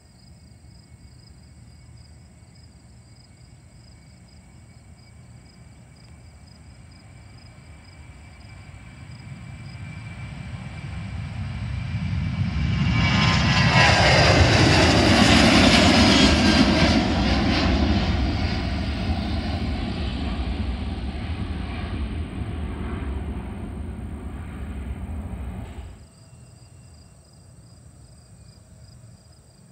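Southwest Boeing 737 jet taking off at full power: the engine noise builds over several seconds, is loudest halfway through as the plane lifts off and climbs past, then slowly fades before cutting off abruptly near the end.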